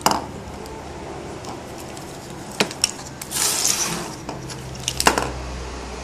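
Yamaha R6 wiring harness being handled on a wooden table: plastic connectors and wires knock and click against the table, with a brief scraping rustle in the middle and a couple more sharp knocks near the end.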